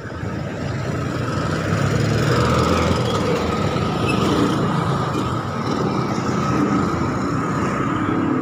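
Motorcycle tricycle (motorbike with passenger sidecar) passing close by, its small engine running. The sound builds over the first couple of seconds and then stays steady.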